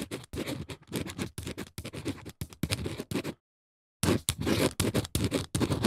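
A pen scratching across a writing surface in quick, short strokes as words are handwritten, with a pause of about half a second a little past halfway.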